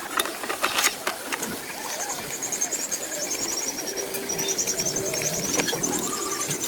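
A small bird singing rapid, high chirping trills in repeated runs, over scattered clicks and knocks.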